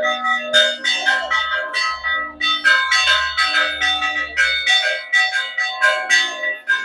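Church bells rung by hand, struck in quick irregular succession, about two or three strikes a second, each strike ringing on under the next.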